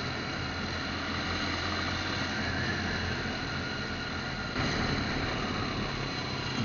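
Engine drone and road noise of a moving vehicle, heard from on board. The sound turns suddenly louder about four and a half seconds in.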